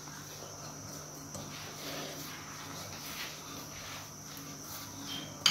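Hands mixing a crumbly dough of egg and ghee in a bowl: faint, soft rubbing and crumbling, over a steady high-pitched background whine. A short click right at the end.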